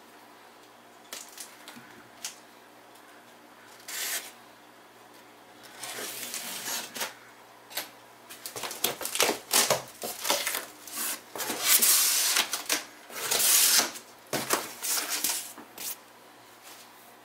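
A cardboard shipping box being opened by hand: a few scattered clicks and knocks at first, then a run of scraping, rubbing and ripping noises as packing tape is torn and cardboard flaps are pulled open, loudest in the second half.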